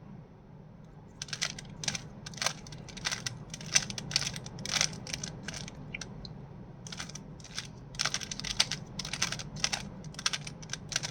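Rubik's Cube being twisted by hand in quick runs of turns, its plastic layers clicking and clacking, while a move sequence puts the top-layer corners in place. The clicking starts about a second in, pauses briefly around the middle, then resumes; a steady low hum sits underneath.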